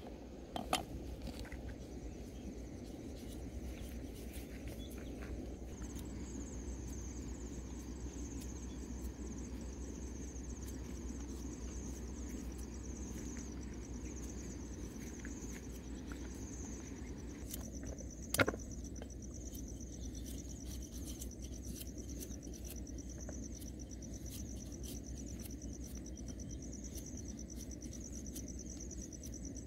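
Insects chirring steadily in a high, slightly pulsing band over a low steady outdoor rumble, with a sharp knock near the start and another about 18 seconds in.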